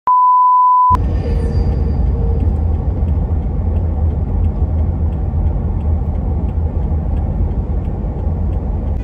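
A loud electronic beep tone lasting just under a second, then the steady low rumble of a car driving, heard from inside the cabin, with a faint regular ticking.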